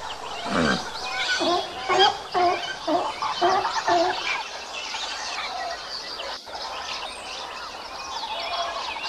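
Sea lions barking, a quick series of loud honking barks about half a second apart for the first four seconds. After that, many small birds chirping in the background.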